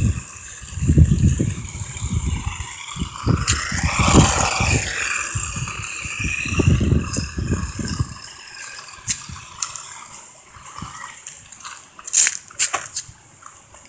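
New Bright toy RC race car running over rough ground, its small electric motor whining up and down in pitch about four seconds in while the plastic body rattles and scrapes, with wind buffeting the microphone. It grows quieter after about eight seconds, with a few sharp clicks near the end.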